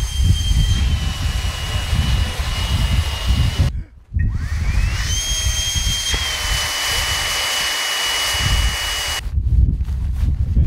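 Black Diamond JetForce avalanche airbag's electric fan spinning up and inflating the airbag: a high whine with rushing air that rises in pitch, then holds steady. It is heard twice: the first run breaks off about four seconds in, the second rises again and stops abruptly about nine seconds in.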